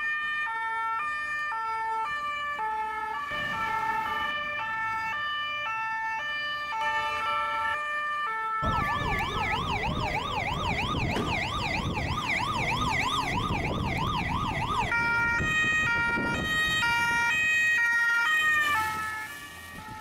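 Gendarmerie emergency-vehicle sirens: two-tone sirens sounding together, stepping back and forth between high and low notes. About nine seconds in they switch to a fast American-style yelp, rising and falling about two to three times a second. Near fifteen seconds the two-tone stepping returns and fades near the end.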